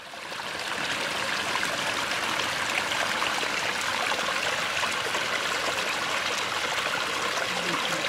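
A small stream of water running and trickling over a muddy bank into a shallow pool: a steady splashing flow that fades in over the first second.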